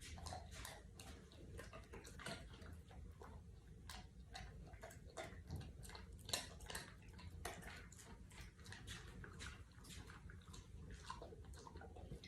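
A dog chewing a treat: faint, irregular crunches and clicks.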